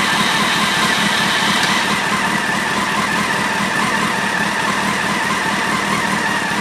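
Motorcycle engine idling just after starting, with a timing-chain rattle: the cam chain tensioner is backed off, leaving the chain far too loose.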